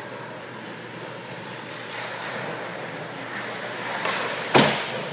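Ice hockey play on an indoor rink: a steady wash of skating and rink noise, then one loud, sharp hit about four and a half seconds in as the play reaches the net.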